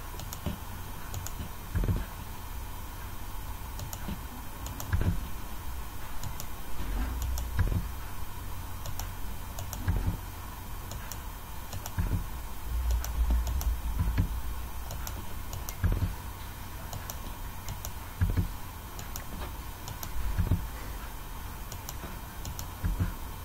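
Computer keyboard and mouse clicks: irregular taps and clicks, roughly one every second or two, over a steady faint electrical hum.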